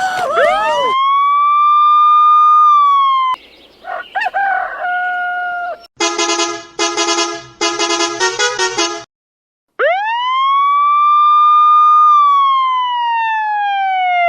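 Edited meme sound effects: a police siren wail rises, holds and drops, followed by a string of short, chopped blasts of a multi-note Volvo bus horn. After a brief gap a second siren wail sweeps up, holds and slowly falls away.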